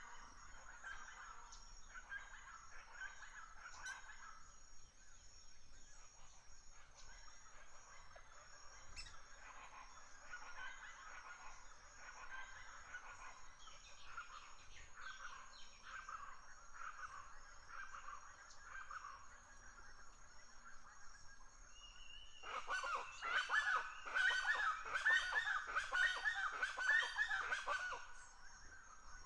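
Many birds calling in short repeated calls, rising to a much louder, dense bout of calling about two-thirds of the way through that stops shortly before the end.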